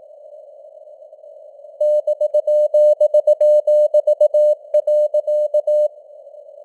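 Morse code (CW) practice at 18 words per minute: a single steady-pitched sine tone keyed in dots and dashes over a hiss of simulated narrow-band radio noise. Only the hiss is heard at first; the keying starts about two seconds in and stops near six seconds.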